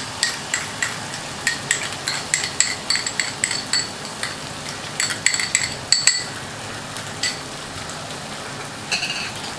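A kitchen utensil clinking and scraping against a small glass bowl, quick ringing clicks several times a second for about six seconds and a few more after, as cashew paste is knocked out into a wok. Masala sizzles in the oil underneath.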